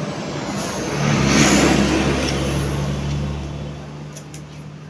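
A motor vehicle passing by with a low engine hum, growing louder to a peak about a second and a half in and then fading away.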